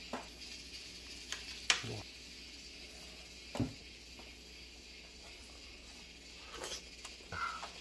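Metal chopsticks tapping against the dishes a few times, short sharp clicks with the loudest about two seconds in, while a slice of raw flounder is picked up and dipped in chojang sauce.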